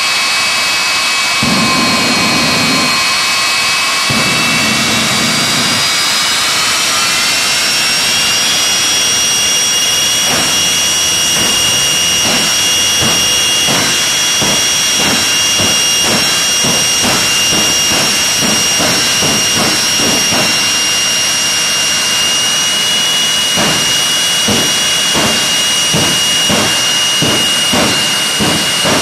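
Turbojet engines of two jet drag cars running at the start line: a loud high whine that climbs in pitch about six to nine seconds in as they are throttled up, then holds steady over a fast, uneven pulsing rumble.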